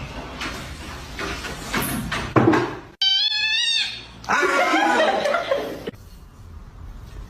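A cat meowing: several calls, the clearest a high, wavering meow starting abruptly about three seconds in, followed by a lower, drawn-out cry.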